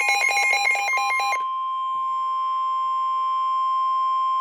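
Emergency alert signal: a rapid chattering of switching tones for about the first second and a half, then a steady single-pitch alarm tone that starts about a second in and holds. The steady tone matches the NOAA Weather Radio 1050 Hz warning alarm tone that comes before a tornado warning.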